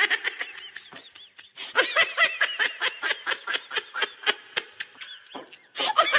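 An animal's rapid string of short, high-pitched squeaking chirps, about five a second, with a brief pause near the end before it starts again.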